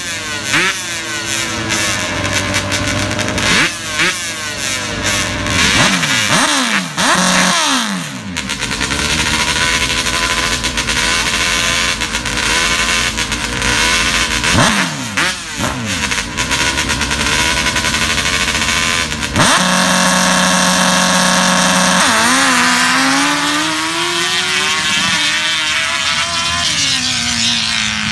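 Two drag-racing ATV engines revving at the starting line in repeated throttle blips, then held at steady high revs. About two-thirds through they launch, and the engine pitch climbs in rising sweeps as the quads race off down the strip.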